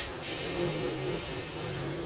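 An engine running, its pitch wavering slightly, over a steady hiss.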